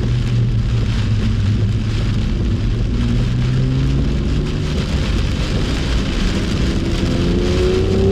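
BMW M2's turbocharged straight-six running at steady low revs under a heavy hiss of rain and spray. About seven seconds in, the engine note starts to climb as the car accelerates.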